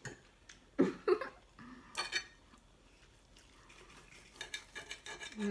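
Metal forks and a knife clinking and scraping on ceramic dinner plates while food is cut and picked up. A few sharp clinks come in the first two seconds, then a run of light scraping taps near the end.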